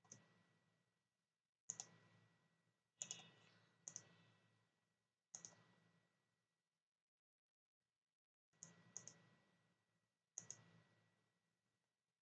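Faint computer mouse button clicks, about a dozen short sharp clicks, several in quick pairs, with near silence between and a pause of a few seconds in the middle.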